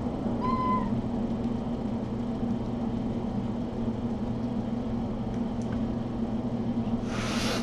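Steady low electrical hum of a running appliance. A brief high, level tone sounds about half a second in, and a short burst of hissing noise comes near the end.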